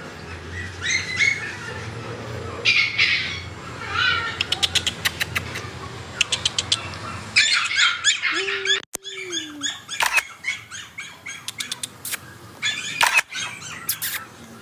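Puppy whining and yipping in short high calls, with runs of quick tapping clicks. From about halfway a busy high-pitched chirping runs on.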